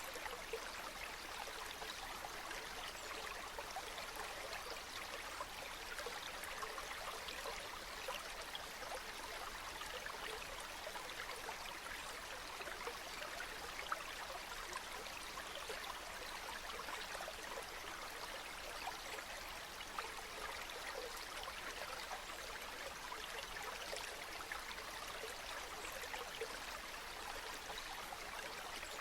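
A small brook flowing steadily, water babbling and trickling over stones with many small splashes.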